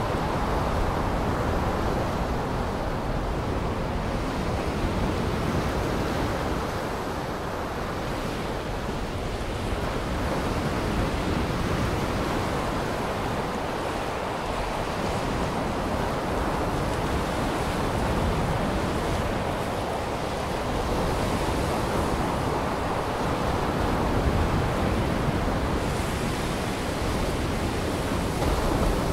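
Steady rushing noise of waves, slowly swelling and easing in level.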